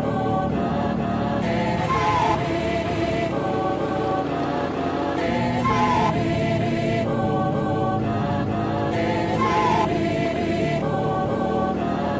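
Background music: a choir-like vocal loop over a steady backing, with a short sung phrase coming back about every four seconds.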